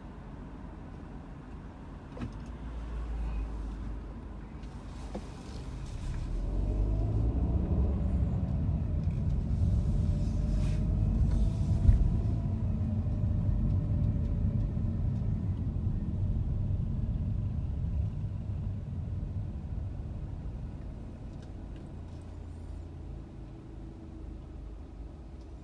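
Car cabin sound of a car on the road: a low engine and road rumble grows loud as the car gets moving about six seconds in, then dies down again as the car slows for a stop. There is a single sharp knock about twelve seconds in.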